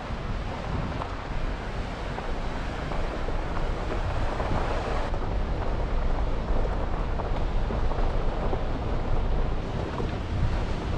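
Wind buffeting the microphone over a steady rushing noise. It gets a little louder about four seconds in.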